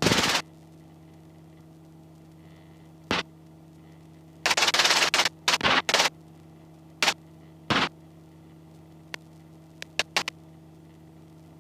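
Helicopter headset intercom audio: a steady electrical hum broken by a run of short, loud bursts of static-like noise that start and stop abruptly, the loudest about four to five seconds in.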